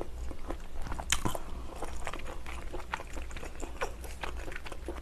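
Close-miked eating sounds: chewing Chinese glass noodles, with many small wet, sticky mouth clicks and smacks.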